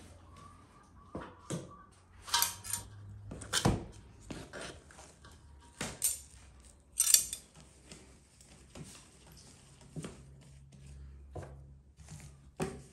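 Sticky dough worked by hand: irregular knocks, wet slaps and scrapes of the dough against an enamel bowl and a wooden board as it is kneaded, pulled and shaped. The loudest slap comes about seven seconds in.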